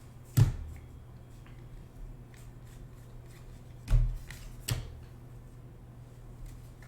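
Trading cards being handled on a table: a few sharp taps and knocks, the loudest about half a second in and around four seconds in, with lighter taps between, over a low steady hum.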